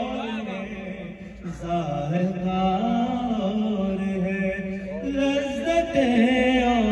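A man singing a manqabat, an Urdu devotional poem, into a microphone, in long, melismatic lines that waver up and down in pitch. It dips briefly about a second and a half in and grows louder near the end.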